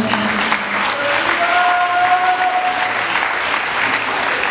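A crowd applauding, a dense steady clapping, with a long held tone sounding through it from about a second in to about three seconds in.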